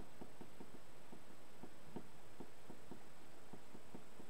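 Stylus writing on a tablet screen: a few soft, irregular taps a second as words are handwritten, over a steady background hiss with a faint high whine.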